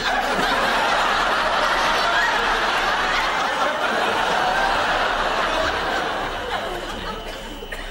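Studio audience laughing, breaking out at once and holding steady, then tailing off near the end.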